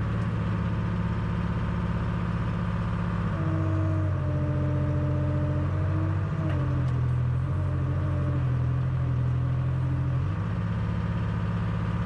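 Dynahoe 160 backhoe's engine running steadily as the boom is worked. From about three seconds in to about ten, the engine note drops and a steady whine with small pitch steps rides over it while the hydraulics are under load.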